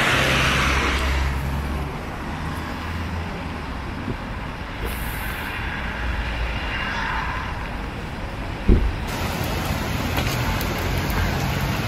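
Street traffic noise, with a low rumble in the first two seconds and a single thump about three-quarters of the way through.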